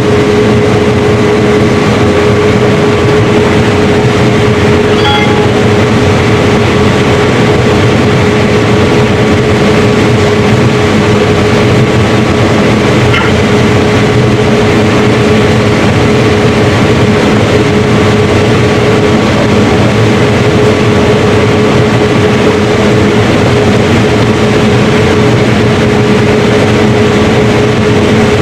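Combine harvester running steadily while harvesting corn, heard from the cab: a loud, even engine and machinery drone with a constant hum.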